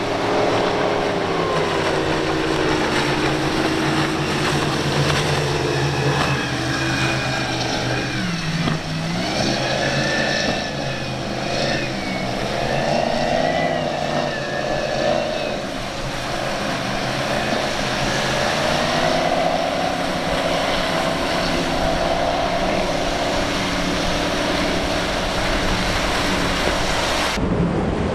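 Several motorboat engines running at once, their pitch rising and falling as the throttle changes.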